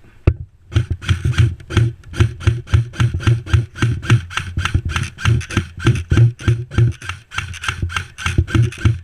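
A fast, even series of thuds with a rasping, rustling edge, about four a second, starting just under a second in and keeping up steadily.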